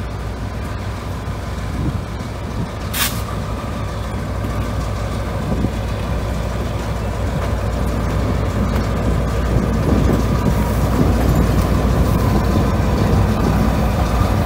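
EMD MP15DC switcher locomotive's diesel engine running as it pulls cars past, a steady low rumble growing louder as it draws close. About three seconds in, a short sharp hiss of air.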